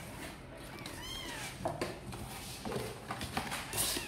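A kitten gives one short meow about a second in, rising then falling in pitch. After it come short scratches and knocks, which are kittens' claws scrabbling on the cardboard walls of their box.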